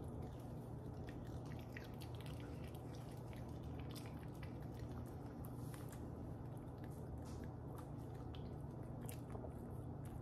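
A toy poodle chewing and biting small pieces of peach: irregular wet clicks and smacks over a steady low hum.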